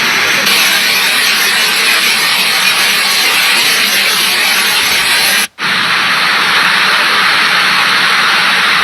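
Steady, loud rush of fast-flowing floodwater, cutting out for a moment about five and a half seconds in.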